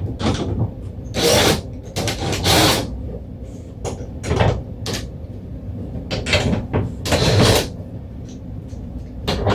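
Tools being handled and rummaged through: a string of short, irregular clattering and scraping noises, roughly one every second.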